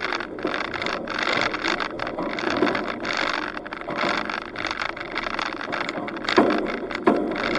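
Wind and driving noise on a roof-mounted camera's microphone as a 4WD drives along a dirt track: an uneven rushing that surges louder near the end, with a few brief knocks.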